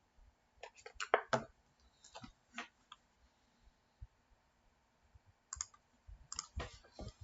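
Clusters of sharp clicks and taps from small hard objects being handled: a quick run about a second in, a few more around two to three seconds, then another run near the end after a quiet stretch.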